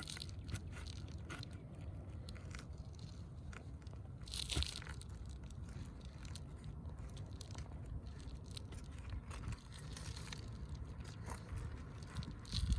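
Scraping and crunching of asphalt roof shingles being pried loose to get at and pull their nails, with scattered sharp clicks, the loudest about four and a half seconds in, over a low steady rumble.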